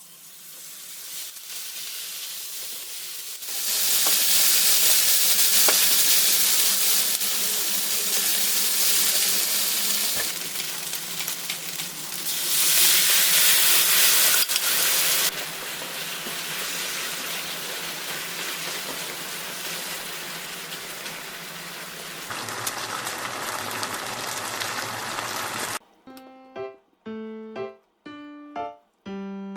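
Food sizzling in a frying pan, jumping much louder about four seconds in and flaring again around twelve seconds, then cutting off near the end as piano music comes in.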